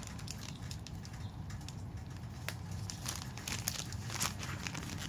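Plastic packaging pouch of a phone case crinkling in the hands as it is turned over, with scattered light crackles.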